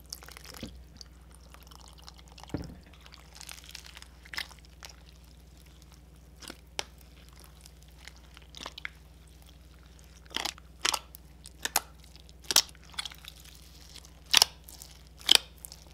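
A hand squishing and kneading a big tub of mixed clear slime full of foam beads: sticky squelches with sharp little clicks and pops, scattered at first and coming thicker over the last few seconds.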